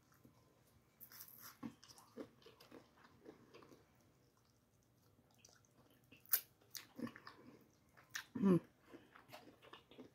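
Close-up eating sounds: lips smacking and sucking on fingers and a fried chicken wing, with chewing and sharp wet mouth clicks. A short rising pitched sound comes about eight and a half seconds in.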